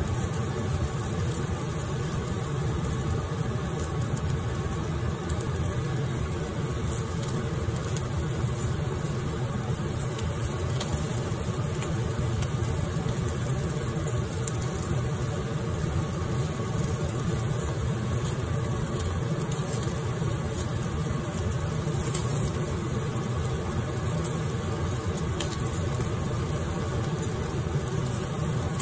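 Portable gas stove burner running under chicken wings on a wire grill: a steady low rumble, with a few faint crackles of fat.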